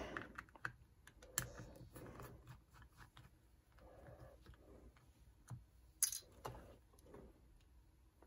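Small clicks and faint handling rustles as a small remote-control switch is being taken apart by hand, with a sharper click about six seconds in.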